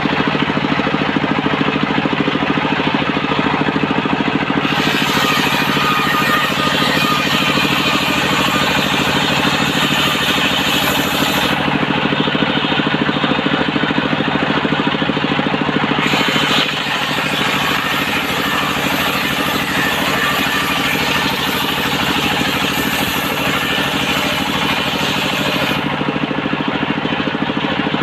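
Engine-driven home-built circular saw running steadily, cutting coconut-palm wood. A high hiss from the blade in the wood comes in about five seconds in and stops near twelve seconds, then returns from about sixteen seconds until shortly before the end.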